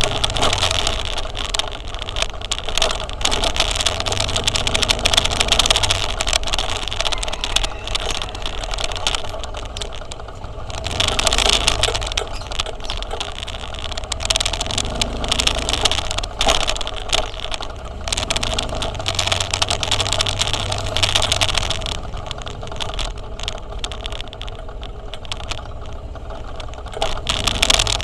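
Motorcycle riding in traffic: steady engine and road noise that swells and eases every few seconds.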